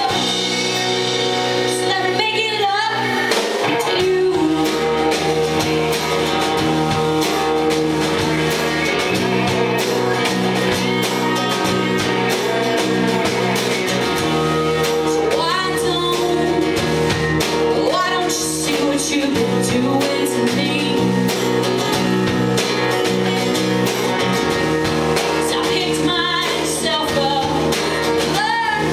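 A live band playing a song with a woman singing lead over guitar, bass and drums.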